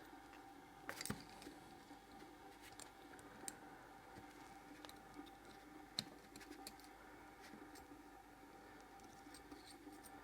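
Faint clicks and light scraping of small metal engine parts (valve, spring and retaining clips) being handled during cylinder head disassembly, over a steady faint hum. The clearest clicks come about a second in and about six seconds in.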